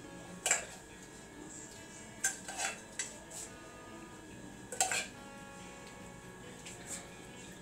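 Metal spoon clinking and scraping against a metal saucepan as mashed potatoes and maize (mukimo) are scooped out: about six short, sharp clinks at uneven intervals, the loudest about half a second in and near five seconds.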